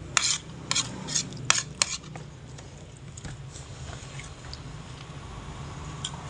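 Eating sounds from a man eating rice by hand off a plastic plate: five or six sharp clicks and clatters in the first two seconds, then quieter.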